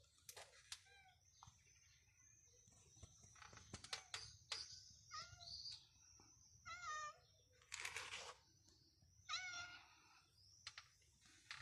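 Calico cat meowing faintly several times, in short calls that rise and fall in pitch, with a few faint clicks between them.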